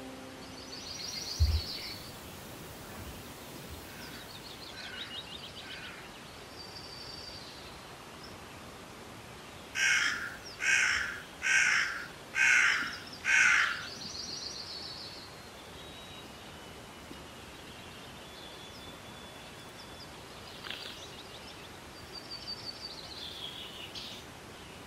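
A crow cawing five times in quick succession, a harsh call a little under a second apart. Small songbirds trill faintly on and off around it.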